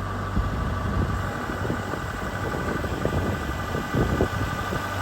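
Tractor engine running steadily, with irregular low knocks and rumbles starting about half a second in as a log is rolled over on the sawmill bed.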